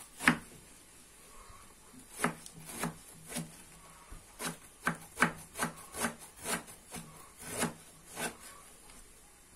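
Kitchen knife finely shredding a young cabbage head on a wooden cutting board: a run of short slicing strokes, about two a second, with a brief pause about half a second in.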